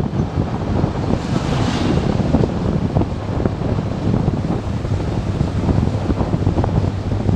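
Heavy wind buffeting on the microphone of a riding motorcycle, over the bike's steady low engine and road rumble. About a second and a half in, a brief rising hiss as an oncoming coach passes.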